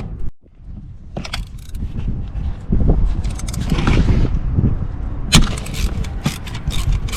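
Metal tools and engine parts clinking, knocking and scraping by hand, in irregular sharp clicks over a low rumble, during spark plug work on a BMW M54 engine.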